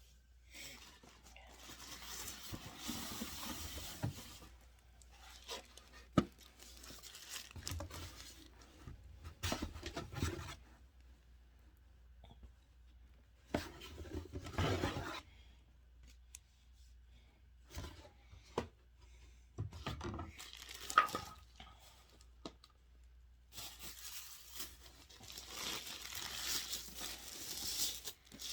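Packaging being torn open and crinkled by hand in several bursts, with a few sharp knocks as parts are handled.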